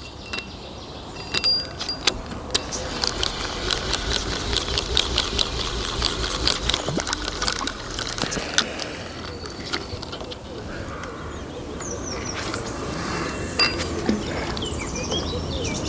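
Spinning reel on a feeder rod being worked while line is let out, a dense run of fine clicks and metallic clinks for several seconds, easing off about ten seconds in.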